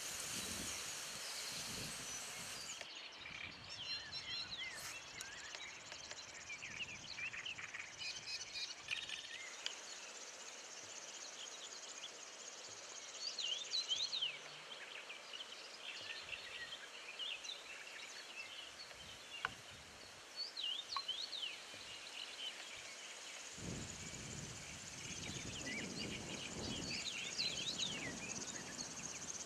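Outdoor ambience of small songbirds chirping and singing over a steady high hiss of insects, with a low rumble joining in the last six seconds.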